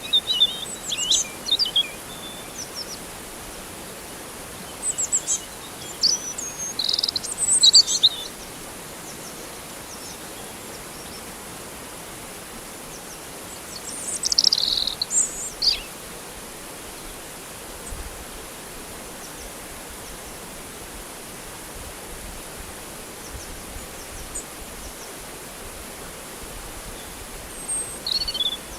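Birds chirping in short clusters of quick, high calls a few seconds apart, over the steady hiss of flowing river water.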